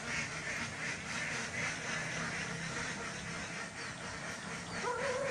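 Ducks quacking over and over against a steady hiss, with one clearer call near the end.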